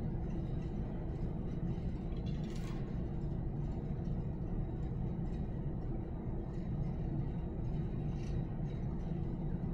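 Steady low rumble of room background noise, with a faint click about two and a half seconds in and a fainter tick near the end.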